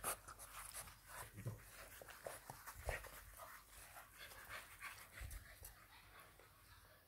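English bulldog puppy panting faintly in irregular breaths, with small scuffling sounds as the puppies play.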